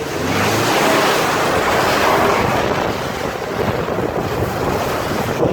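Rushing hiss of slush and water spraying up from a car's tyres into the wheel wells as it drives along a slushy dirt road. The noise swells in the first second, holds steady, then cuts off abruptly at the end.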